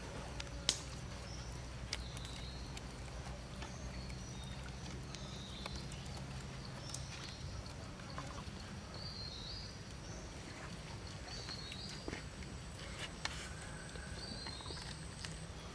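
Short bird chirps repeating every couple of seconds over a low steady forest background, with scattered clicks and taps from hands working sticks and raw chicken on a wooden frame. A thin, high steady tone comes in near the end.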